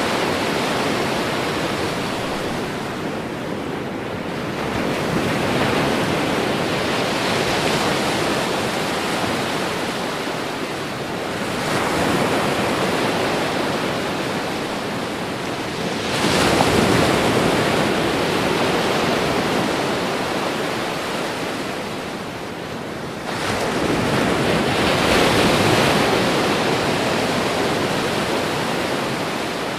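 Ocean surf breaking on the shore: a steady rushing wash that swells into a fresh surge four times, roughly every five to seven seconds, each one fading before the next wave comes in.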